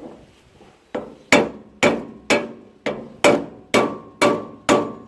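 Hammer blows on metal, a steady run of about two strikes a second, each ringing briefly, knocking a seized part loose on a McCormick International B46 hay baler.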